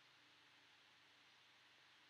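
Near silence: room tone with a faint steady hiss and low hum.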